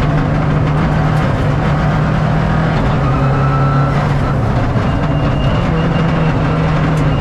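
Subaru Impreza R4 rally car's turbocharged flat-four engine pulling hard, heard from inside the stripped cabin, with a shift up into sixth gear about four seconds in that drops the pitch before it climbs again.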